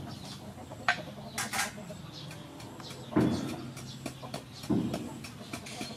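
Wooden pestle pounding in a large wooden mortar, a few dull thuds as chili-sauce ingredients are crushed, with chickens clucking in the background.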